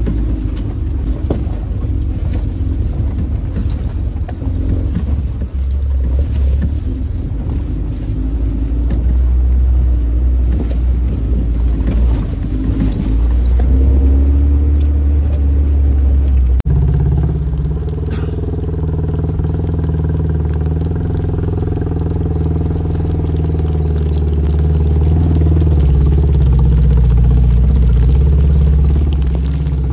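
Off-road jeep driving over a rough lava track: a loud, continuous low engine rumble with road noise. About two-thirds of the way through the sound switches abruptly to a steadier engine drone.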